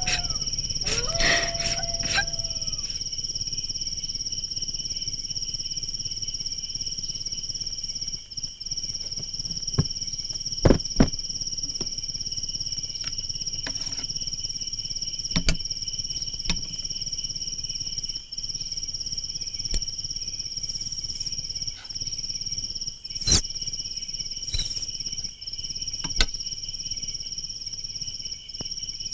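Night chorus of crickets trilling steadily in two high pitches, with a few sharp clicks and knocks of objects being handled, the loudest a quick double click about eleven seconds in. A dog's howl fades out in the first couple of seconds.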